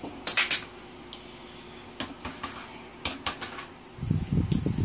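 Light clicks and knocks from hands handling a bicycle wheel and its freshly pumped-up tyre, with a low rubbing rumble near the end as the knobby tyre is gripped. A faint steady hum runs underneath.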